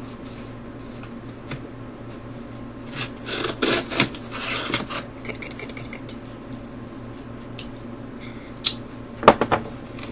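A cardboard subscription box being opened and its packing handled: scraping and rustling, loudest about three to five seconds in, with a few sharp knocks near the end.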